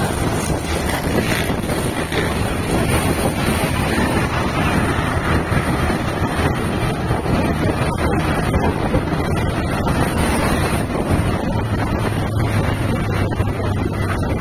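Steady wind rush over the microphone with engine and road noise from a moving vehicle. A low engine hum grows stronger for a couple of seconds near the end.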